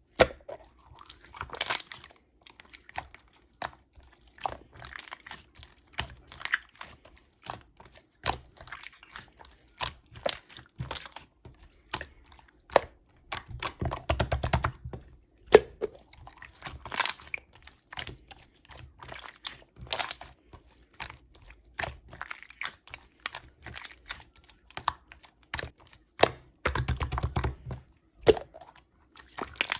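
Slime being kneaded, pressed and stretched by hand, giving irregular wet clicks, pops and crackles, with a few duller low thumps from the slime being pressed or handled.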